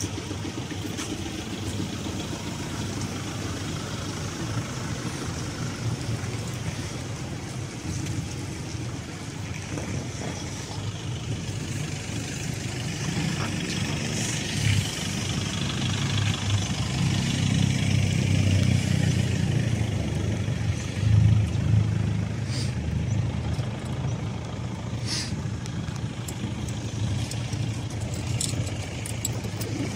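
Road traffic: vehicle engines running with a steady low rumble, which grows louder a little after the middle as a heavier engine comes close, then eases off.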